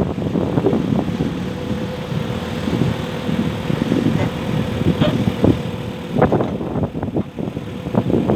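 Volvo BL71 backhoe loader's diesel engine running, with irregular knocks and clanks and a steady whine through the middle.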